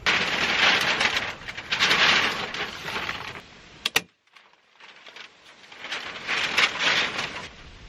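Tyvek house wrap rustling and crinkling as it is handled and pulled along the frame. A single sharp staple-gun snap comes about four seconds in.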